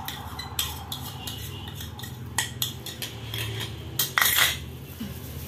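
Metal spoon and small plastic bowl clinking and knocking against a plastic mixing bowl as salt and vanilla powder are tipped into dry flour and stirred. There are scattered light taps, and a louder clatter about four seconds in.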